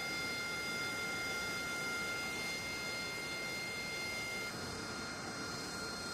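F-35 fighter jet engines running at taxi power: a steady rush with several high steady whine tones over it. About four and a half seconds in, the whine tones drop out and a slightly quieter steady rush carries on.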